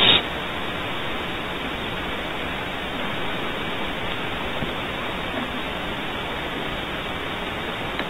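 Steady static-like hiss from an outdoor wildlife camera's microphone, with a brief louder burst of noise right at the start.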